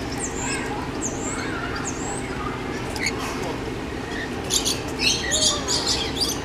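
Rainbow lorikeets calling: scattered high, thin chirps, then a burst of loud, harsh screeching about four and a half seconds in.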